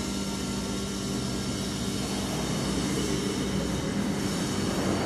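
Steady low mechanical hum with a constant rushing background noise, unchanging throughout.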